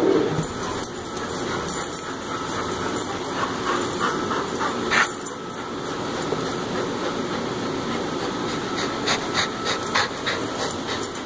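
A dog panting close by while it plays with a plastic frisbee, with scattered sharp clicks and taps: one cluster around the middle and another near the end.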